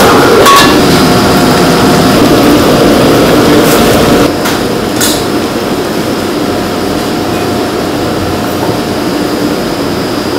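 Steady rushing noise of commercial gas wok burners running under the kitchen exhaust, with a few light metallic clinks. It drops somewhat in level about four seconds in.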